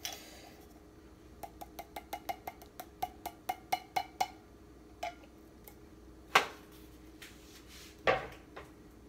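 A utensil tapping rapidly on an upturned metal food can, about five ringing taps a second for about three seconds, knocking the last of the enchilada sauce out. Two louder knocks follow, over a steady low hum.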